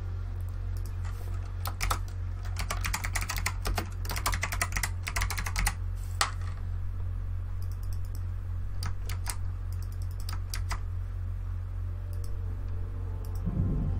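Typing on a computer keyboard: several quick bursts of key clicks with pauses between them, over a steady low hum.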